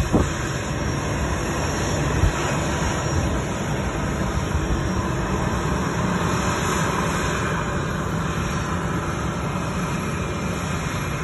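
Steady rushing roar of a jet airliner's engines across the airfield, swelling a little in the middle and easing toward the end.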